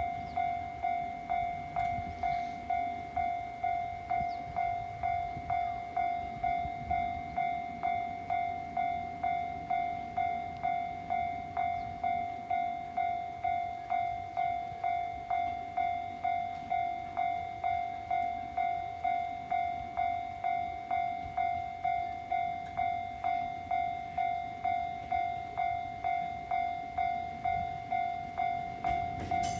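Japanese level-crossing warning bell ringing in an even, repeating clang, a little faster than once a second, warning that a train is approaching. A low rumble comes in near the end.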